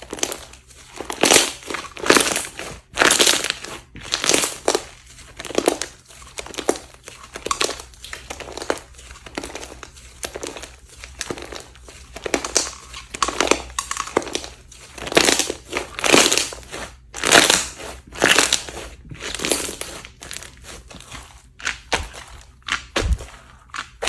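Slime being squeezed, pressed and folded by hand, crackling and crunching in short repeated bursts about one to two times a second.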